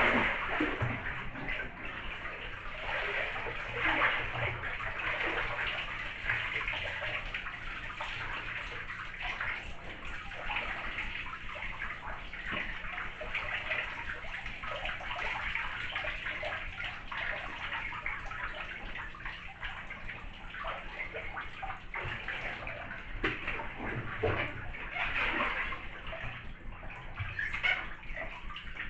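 Bathwater sloshing and splashing irregularly in a full tub as a fully clothed person moves about in it, getting up to stand and then sitting back down in the water.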